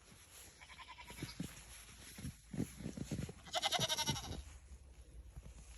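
Goat bleating twice: a faint call about half a second in, then a louder, high bleat lasting under a second about three and a half seconds in. Soft low thumps in between.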